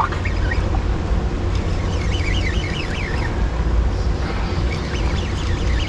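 Steady low rumble of water churning out of the hydroelectric dam's turbines. Faint high chirps come in about two seconds in.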